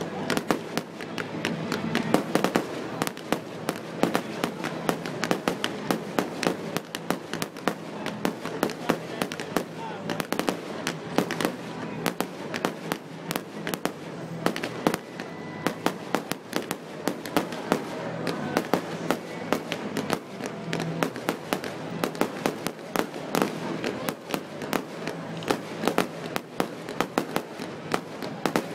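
Aerial fireworks display: a dense, continuous run of sharp bangs and crackling, several reports a second.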